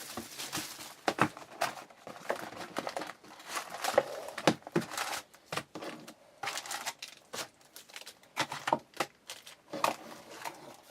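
Plastic wrapping crinkling and tearing in irregular crackles as a sealed box of baseball cards is opened by hand.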